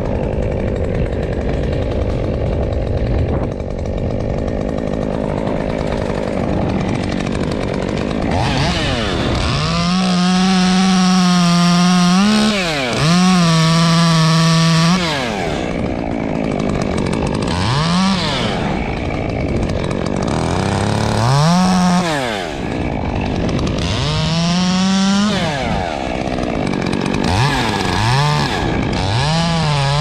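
Muffler-modified Stihl top-handle two-stroke chainsaw cutting birch limbs. It is revved to full throttle in long runs, then in shorter rev-ups, dropping back between cuts. For the first several seconds there is a steady rush of wind on the microphone.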